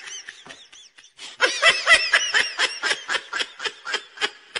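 High-pitched laughter, a quick run of short laughs at about five a second, with a brief break about a second in.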